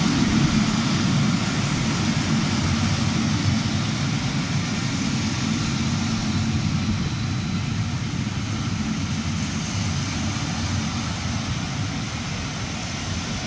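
Passenger coaches of a train hauled by a Class 86 electric locomotive rolling past on the rails: a steady rumble of wheels that slowly fades.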